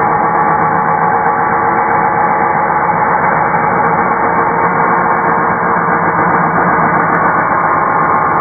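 A 2.5 hp corded circular saw running steadily under load as its blade cuts through a pressure-treated board: one unbroken motor whine over the noise of the blade in the wood.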